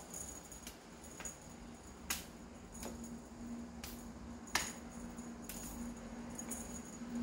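A feather wand cat toy being swung and flicked, giving a few sharp ticks and taps against the window, the loudest about four and a half seconds in, over a low steady hum.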